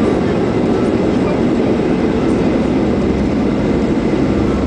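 Jet airliner rolling down the runway for takeoff, heard inside the cabin: steady jet engine noise over the rumble of the wheels on the runway.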